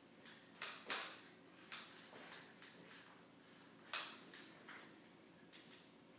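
Forearm crutches and full-leg HKAFO braces tapping and knocking on a hard floor as a person walks with them: about ten sharp clicks at an uneven pace.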